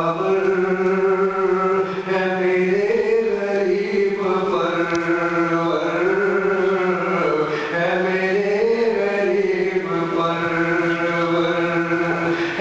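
A man chanting solo into a handheld microphone: long held notes that swell and fall slowly in pitch, in phrases of a few seconds each with brief breaths between them.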